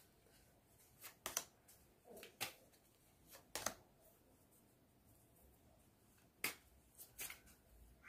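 A small deck of fortune-telling cards shuffled and cut by hand: short, sharp card snaps and slides in a few irregular clusters, with a quiet pause in the middle.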